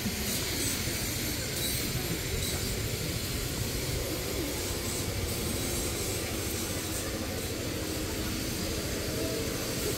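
Busy street-market ambience: a steady low rumble with the faint murmur of passers-by's voices.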